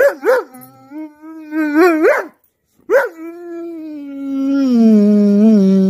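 Dog howling: two short yelping notes, then a long wavering howl that rises at its end. After a brief pause comes a second long howl that slides down in pitch and holds steady.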